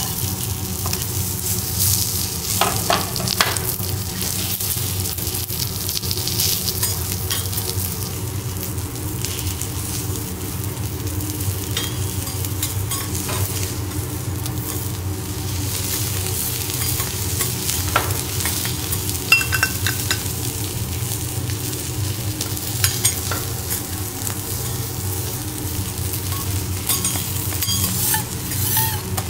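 Garlic slices sizzling in oil on a hot steel teppanyaki griddle, a steady frying hiss, with metal spatulas scraping and clicking against the plate now and then.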